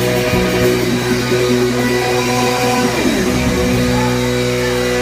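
Live band of electric guitar, upright bass and drums playing; about three seconds in a note slides down and the drumming stops, leaving a held chord ringing, the close of the song.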